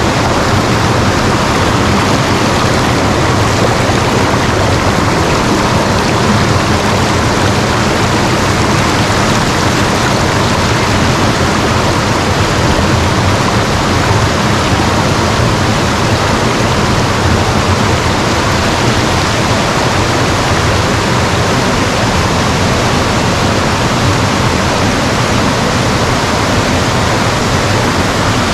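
Waterfall: water falling and splashing in a loud, steady rush.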